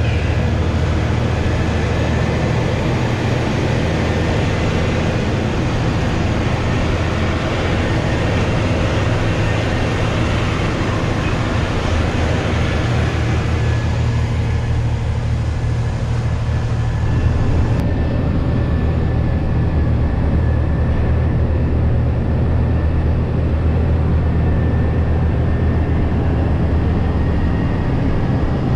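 Hino 500 truck's diesel engine running steadily, heard from inside the cab over road and wind noise. About two-thirds of the way in, the high hiss drops off abruptly.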